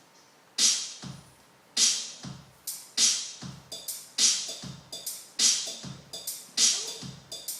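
Electronic drum-machine beat from a music-making app's ready-made samples: sharp hits about every 0.6 s, bright snare-like strikes alternating with low bass-drum thumps. The beat grows busier with extra short hits from about four seconds in.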